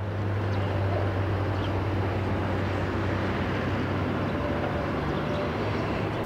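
A steady low electrical hum over a rough, even rumble, with a second, slightly higher tone joining about four seconds in.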